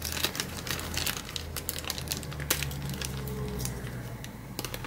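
Clear plastic bag crinkling with many small irregular clicks as it is handled and cut open with pocket-knife scissors.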